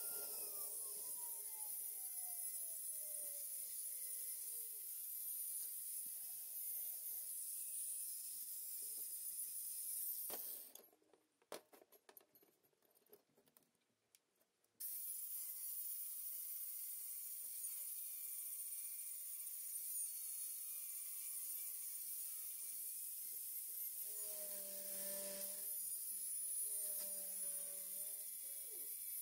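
A power tool's electric motor whining down in pitch as it coasts to a stop, then, after a few seconds of near silence, a small motor running with a steady whine near the end.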